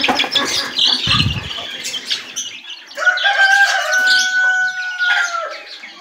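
Flapping and rattling as caged birds are let out, loudest in the first second, with a brief low thud. Then, about three seconds in, a rooster crows one long held call that dips in pitch at its end.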